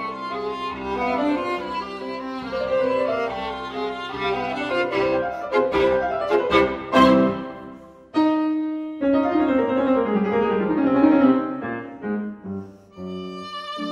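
Instrumental music led by violin with piano accompaniment, dropping away briefly about eight seconds in before a held note starts the next phrase.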